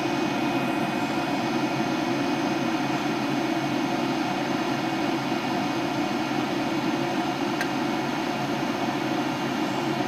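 Gas furnace running steadily while fired on a call for heat, its burners and fans making an even rush with faint high whines, as the gas valve's regulator screw is turned up to raise manifold pressure. One light click about three-quarters of the way through.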